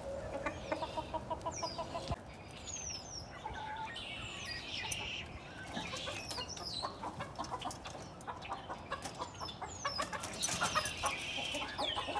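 Hens clucking, a quick run of clucks in the first two seconds and denser, louder rapid clucking near the end, with high, falling chirps of small birds in between.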